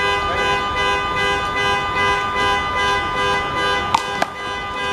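A steady, held drone of several pitches sounds throughout. About four seconds in come two sharp smacks a fraction of a second apart: a handball being struck and hitting the wall.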